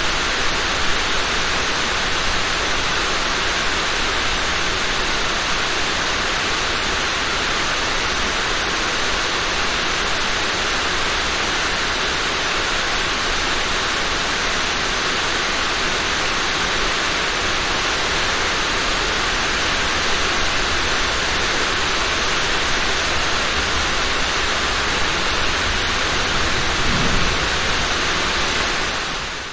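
Rain falling steadily: a dense, even hiss with a low rumble beneath it, fading out at the very end.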